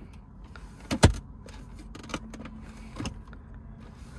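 Plastic centre-console armrest lid of a Mercedes W203 C-Class being worked by hand: one sharp double click about a second in as it latches, then a few lighter clicks and knocks as it is handled.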